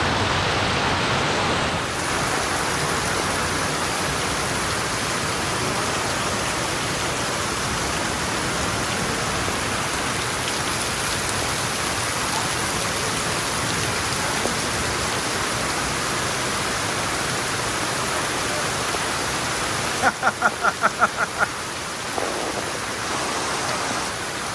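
Heavy tropical rain pouring steadily in the rainforest, a dense even hiss. About twenty seconds in, a quick run of about seven short pitched notes sounds over it for a second and a half.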